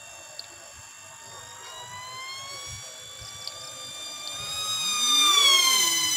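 High-pitched whine of a homemade flying-wing RC plane's 2205 brushless motor and 5-inch propeller at high speed, growing louder and slightly higher as it closes in. It passes close by about five and a half seconds in, where the whine drops in pitch as it goes away.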